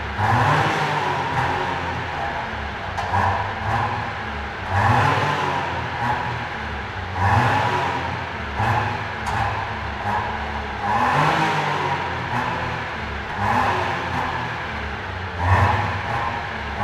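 Mitsubishi Colt engine revved repeatedly while the car stands still: the pitch climbs and drops back about every two seconds.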